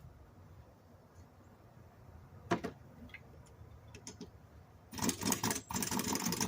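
A few light clicks and knocks of the socket going onto the blade bolt, then about five seconds in, two short, loud bursts from a pneumatic impact wrench being triggered while the compressor has run out of air, so it does not tighten the bolt.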